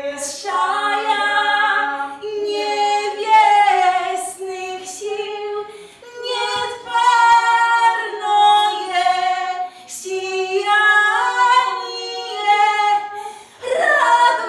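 Female voices singing a cappella, in sung phrases a few seconds long with short breaks between them.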